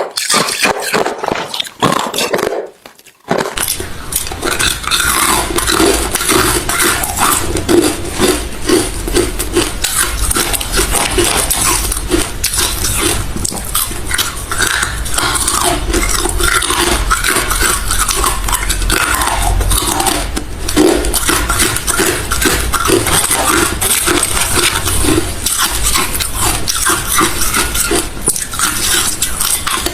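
A person chewing hard refrozen crushed ice close to the microphone: dense, continuous crunching that starts after a brief lull about three seconds in.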